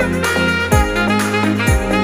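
Background music with a steady beat and a bass line that changes note about twice a second.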